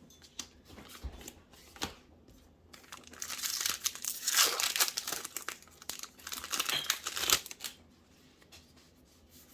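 Magic: The Gathering draft booster pack's foil wrapper crinkling and tearing as it is opened, from about three seconds in until about seven and a half seconds in. A few light clicks of card handling come before it.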